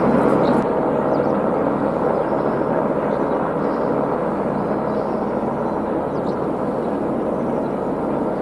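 Distant helicopter hovering, a steady drone of engine and rotor.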